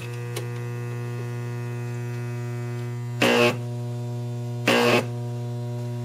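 Deshunted microwave oven transformer running without capacitors, humming loudly and steadily. Twice, about three seconds in and again near five seconds, a high-voltage arc is drawn from its output wire, each a short noisy burst lasting a fraction of a second.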